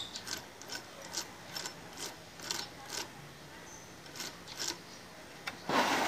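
Transmission gears and shafts of an NS150 motorcycle engine turned by hand in the open crankcase, giving sharp irregular metal clicks about twice a second as the gearbox is worked into neutral. Near the end there is a louder short scrape as the aluminium crankcase is shifted on its plastic crate.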